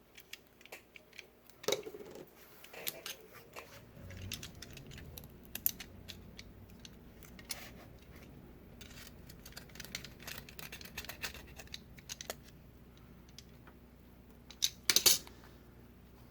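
Hand work at the repair bench laying adhesive strips on an iPad Pro's frame: scattered small clicks, taps and scratches, with a louder rustle near the end. A faint low hum comes in about four seconds in.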